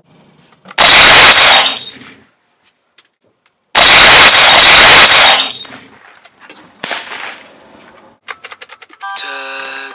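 Two loud bursts of rapid gunfire, the first about a second long and the second about a second and a half, each trailing off. A few light clinks follow.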